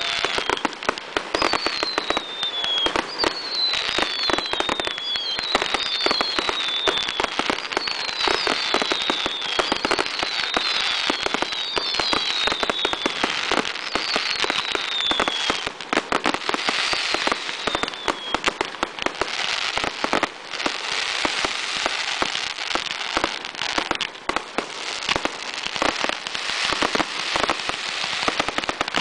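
Professional 1.3G display fireworks (aerial shells and cakes) going off in a dense barrage of overlapping bangs and crackles. A string of falling whistles repeats about once a second through the first two-thirds, then stops.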